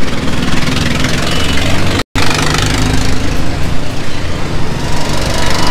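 Street traffic, with a vehicle engine running close by and a loud steady rumble. The sound cuts out completely for a split second about two seconds in.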